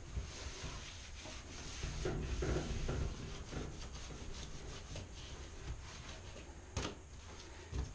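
Bathroom scrub mitt rubbing over a bathtub's surface in repeated scrubbing strokes, with two sharp knocks near the end.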